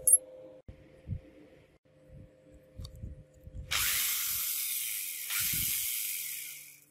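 An electric drill running, a steady hissing motor noise that starts about halfway through and cuts off near the end, with its bit over a small steel cleaver blade clamped in a vise. Before it, a few soft knocks as the blade is handled and set in the vise.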